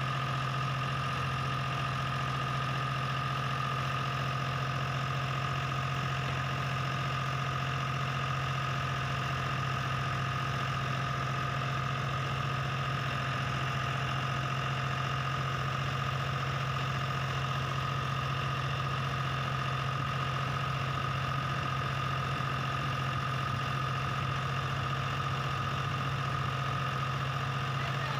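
Diesel engine of a John Deere 5310 tractor-based combine harvester running steadily at a constant low speed. Its hum carries a steady high whine, with no revving.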